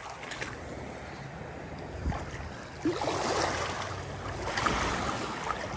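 Shallow seawater sloshing and lapping around feet wading over rocks, with wind buffeting the microphone; the water and wind noise grow louder about three seconds in.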